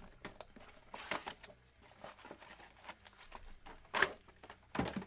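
Trading card boxes and foil-wrapped packs handled on a tabletop: irregular rustling and light knocks. The loudest come about a second in, about four seconds in and near the end.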